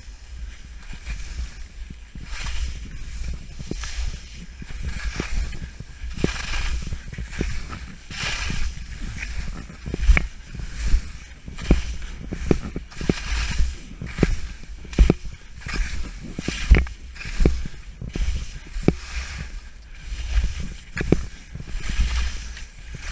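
Skis scraping and hissing on snow through moguls, a burst of hiss on each turn about once or twice a second, with repeated knocks as the skis hit the bumps. Under it runs a steady low rumble of wind on the body-worn camera's microphone.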